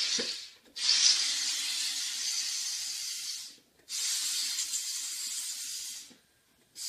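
SodaStream home carbonator forcing CO2 gas into a bottle of red wine, hissing loudly in separate bursts each time the button is pressed: one hiss ending about half a second in, two long hisses of two to three seconds each with brief silent gaps between them, and another beginning near the end.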